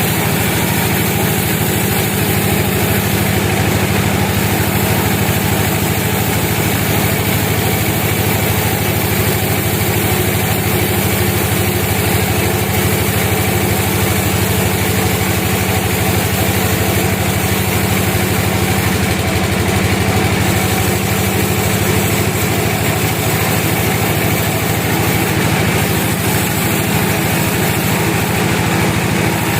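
Sawmill machinery running steadily: a continuous engine drone with a steady hiss above it and no breaks or changes.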